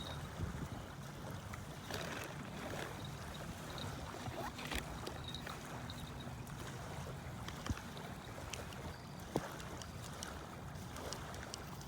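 Steady low hum under water and wind noise, with an on-and-off high thin tone and two short sharp clicks in the second half.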